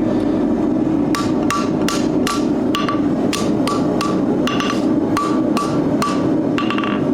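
Blacksmith's hammer striking hot steel on an anvil, closing the curled eye of a forged hinge: a run of blows beginning about a second in, about two to three a second, each with a short metallic ring. A steady rushing noise runs underneath.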